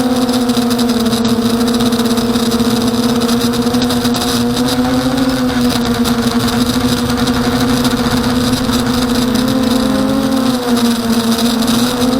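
Emax 250 Nighthawk quadcopter's electric motors and propellers buzzing in flight, a steady high hum that shifts slightly in pitch as the throttle changes, wobbling briefly about ten seconds in.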